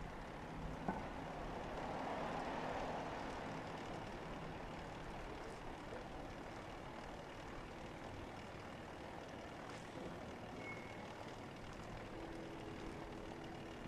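Outdoor ambience of a quiet residential street: steady distant road-traffic hum that swells for a couple of seconds near the start, with a single faint click about a second in.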